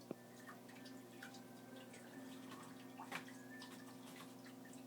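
Faint, wet clicks and smacks of an Argentine tegu's jaws chewing a whole chick, with a sharper click near the start and a louder one about three seconds in, over a steady low hum.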